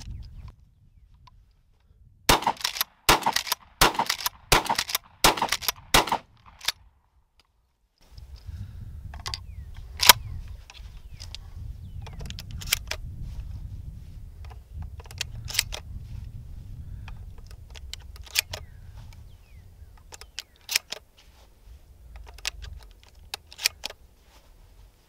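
Shotgun shells being pushed one at a time into the tube magazine of a Rock Island All Gen 12 pump-action shotgun: a series of sharp clicks over a steady low wind rumble on the microphone. About two seconds in comes a fast run of loud sharp cracks that lasts some four seconds.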